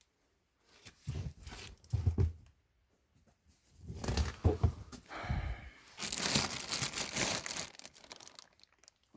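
Old paper rustling and crinkling as books and papers are handled, with a few soft knocks in the first half and a longer spell of rustling in the second half.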